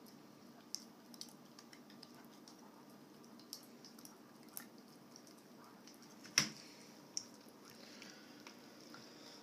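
Dog licking peanut butter off a metal spoon: faint wet smacking and tongue clicks at irregular intervals, with one sharper click about six seconds in.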